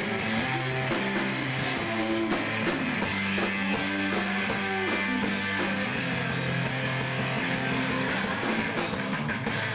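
Rock band playing live on electric guitars and drums, with long held chords and cymbals ringing through.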